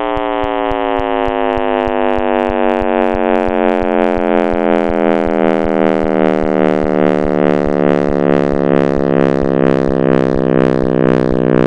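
Synthesized space-sound drone: a dense, many-toned hum that slowly falls in pitch, pulsed by a rapid, regular ticking.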